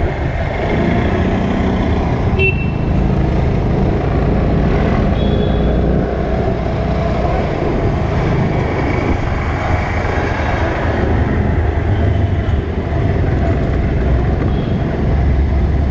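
Riding a scooter through city traffic: a steady low rumble of the scooter's small engine with road and wind noise, other traffic around it, and a couple of brief horn toots.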